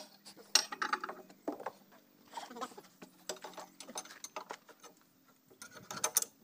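Irregular metallic clinks and knocks of a steel spanner and fittings against the steel loader arm and bucket-cylinder pivot of a backhoe, as the cylinder's bolts are worked by hand. The clinks are loudest about half a second in and again around six seconds.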